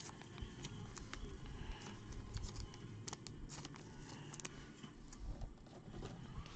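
Trading cards being handled and slipped into clear plastic sleeves: faint, irregular clicks and crinkles of plastic and card stock.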